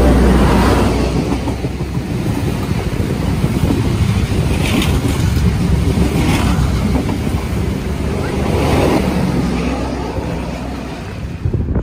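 XPT diesel express passenger train passing close at speed in heavy rain: the leading power car, the eight carriages, then the rear power car go by as one loud, steady rush and rumble.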